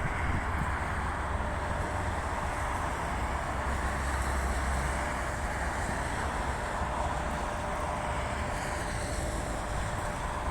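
Freight train hauled by a 2ES5K electric locomotive rolling along the track: a steady low rumble with a faint, steady whine over it.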